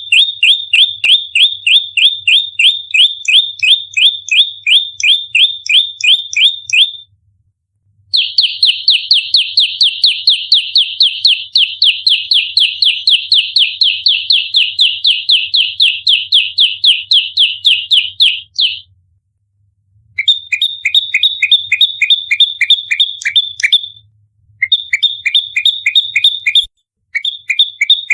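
Prenjak lumut giving its rapid-fire fighting call: long runs of sharp, evenly spaced chirps, about five a second, broken by short pauses. This is the dense 'nembak rapat' song used as a lure and training call.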